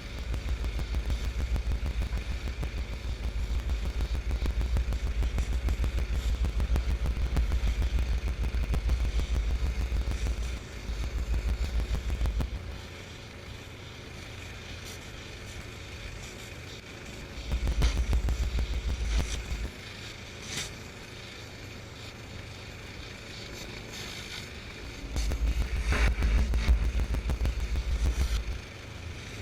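Honda-engined direct-drive pressure washer running steadily while a surface cleaner sprays concrete in stretches: a long spell of about ten seconds, then shorter spells of two to three seconds with quieter running between them.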